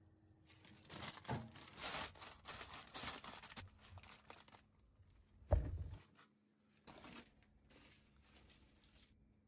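Aluminium foil crinkling and rustling as it is spread and pressed over a cooking pan, with a single dull thump about five and a half seconds in and lighter crinkling near the end.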